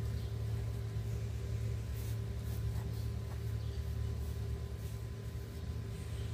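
A steady low hum, with faint, irregular scraping over it from grout being worked into the joints between pool tiles.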